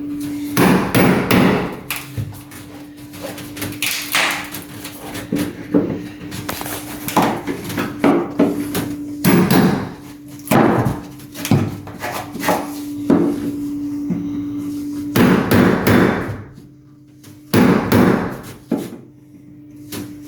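Hammer driving a wood chisel into a 2x4, chiseling out a hole for a drain line: a long run of irregular, sharp blows, with short pauses between groups of strikes.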